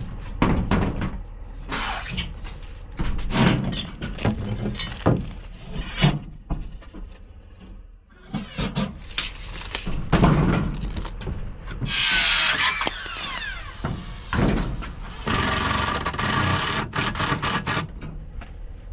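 Corrugated metal roofing being put on: sheet-metal knocks and clatters, with two longer spells of a power tool running about two-thirds of the way through as roofing screws are driven.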